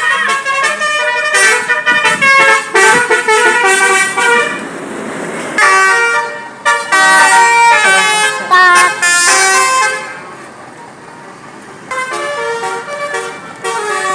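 Indonesian tour-bus 'telolet' horns: multi-tone musical horns playing rapid runs of stepped notes, one melodic phrase after another. They drop away briefly about ten seconds in, then start up again.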